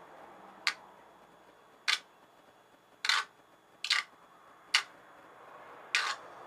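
Six short, sharp crackling snaps, about one a second, from high-current electrodes dipped in water and fed by a lead-acid battery bank, sparking and sizzling as the water heats toward the boil.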